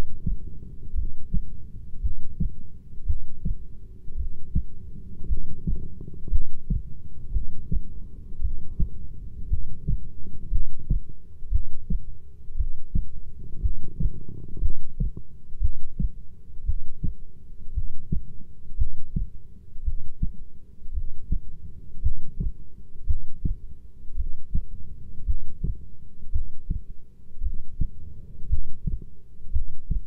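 Heartbeat: low thudding beats repeating in a steady, even rhythm, as picked up in a close heartbeat recording.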